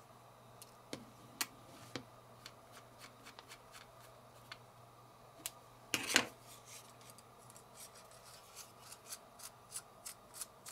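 Light clicks and rubbing from a baitcasting reel's frame and small parts being handled, with one louder scuff about six seconds in and a run of quick ticks, about three a second, near the end.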